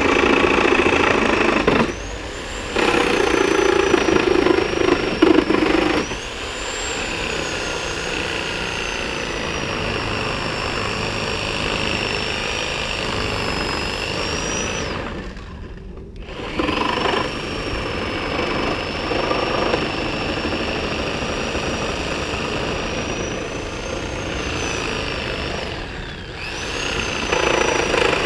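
Corded Skil 7.5-amp reciprocating saw with a Milwaukee nail-embedded wood blade cutting through the nails that hold pallet boards to the stringer. Its motor whine rises and falls with the trigger, with a louder rattling chatter while the blade bites in the first few seconds. The saw stops for about a second around the middle and starts again.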